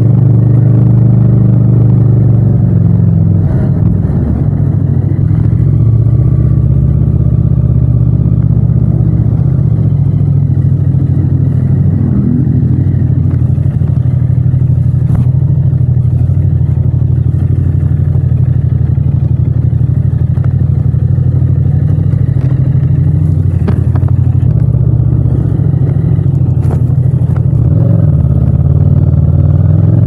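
Yamaha MT-07's parallel-twin engine running at low revs under way, recorded close on the bike without wind noise; the revs ease off and pick up a few times and climb again near the end, with a few short clicks.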